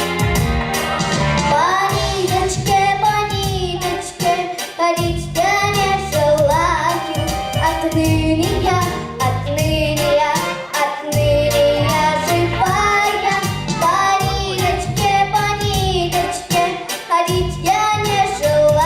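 A girl singing a song over a recorded backing track with a steady beat.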